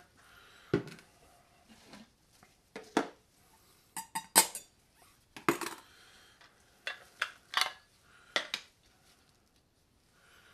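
Clinks and knocks of kitchenware being handled around a glass mason jar: a stainless steel funnel lifted off and things set down on the table. About ten separate sharp knocks, spaced with short gaps.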